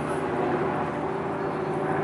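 Steady engine drone with a few level humming tones over an even rushing noise, unchanging throughout.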